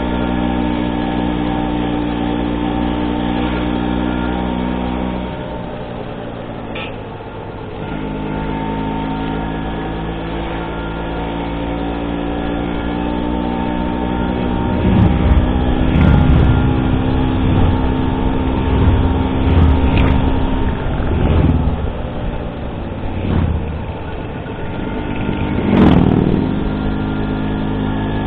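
Vintage Vespa scooter's two-stroke engine running under way. It eases off for a couple of seconds about five seconds in, then revs up and down repeatedly through the second half.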